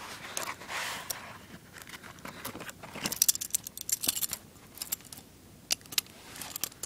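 Metal hinged handcuffs clinking and rattling as they are handled, with soft rustling at first, then a cluster of sharp clicks about three seconds in and more near the end.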